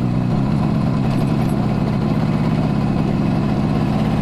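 Suzuki GT250's air-cooled two-stroke parallel-twin engine running steadily while the motorcycle is ridden along.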